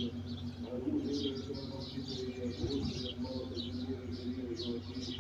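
Small birds chirping over and over in quick short notes, with a low steady hum and faint murmuring underneath.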